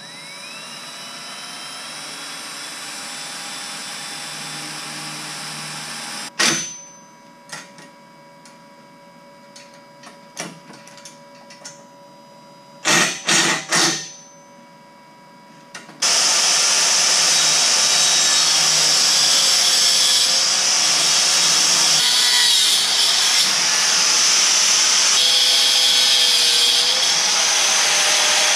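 Cordless drill boring into square steel tubing, spinning up with a rising whine and then running steady, followed by a few sharp metal knocks. About halfway through, a much louder angle grinder starts cutting expanded steel mesh and winds down near the end.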